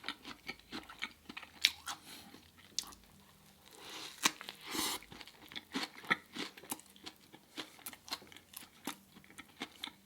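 A person crunching and chewing Brussels sprout puff chips close to the microphone: a run of short crisp cracks and mouth sounds.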